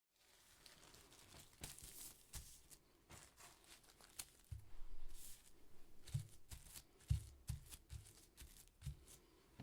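Plastic bags crunched and crinkled in an uneven, step-like rhythm: foley for footsteps on grass. Some crunches carry a soft low thump, the strongest about five and seven seconds in.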